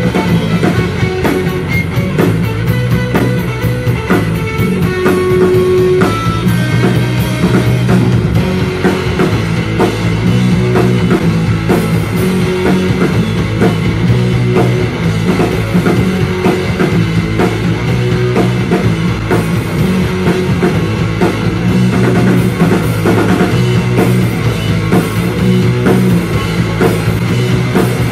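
Live rock band playing loud without singing: electric guitars over a drum kit keeping a steady beat.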